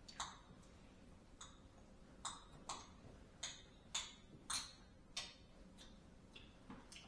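Faint, irregular light clinks and taps of tableware on a set table: about ten sharp strikes of cutlery, plates or glasses, a few ringing briefly.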